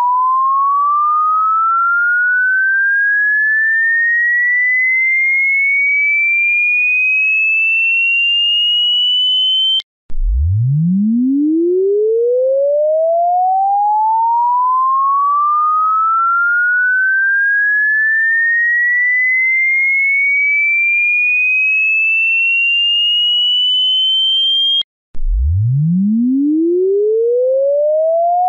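A pure electronic tone sweeping slowly upward in pitch from a low hum to a high whistle, then breaking off and starting again from the bottom, twice.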